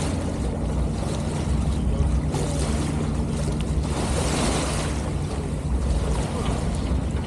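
Wind buffeting the microphone and water rushing along the hull of a sailboat under way, over a steady low hum.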